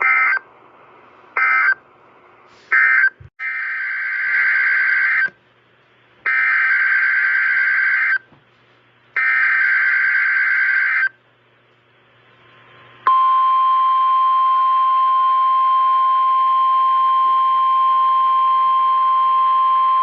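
NOAA Weather Radio SAME digital data bursts: three short bursts, then three longer ones of about two seconds each. About 13 seconds in, the steady 1050 Hz weather radio warning alarm tone starts.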